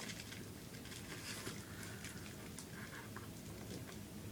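Faint rustling and light scattered clicks of a mailing package being handled and opened.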